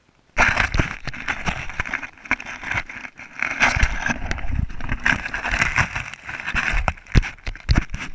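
Traxxas Slash RC truck running over rough ground: a loud, rough noise full of knocks and rattles that starts abruptly about half a second in.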